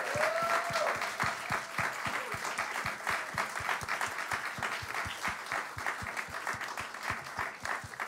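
Audience applauding, a steady patter of many separate hand claps.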